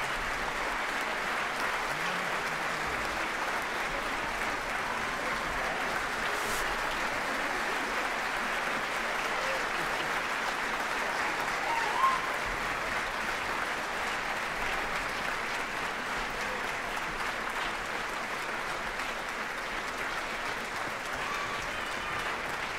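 Concert-hall audience applauding steadily, with a few voices calling out over the clapping and one brief louder peak about halfway through.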